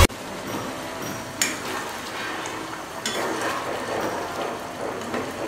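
Metal ladle stirring thick, simmering curry gravy in a pan: wet sloshing and bubbling, with a sharp clink of the ladle against the pan about one and a half seconds in.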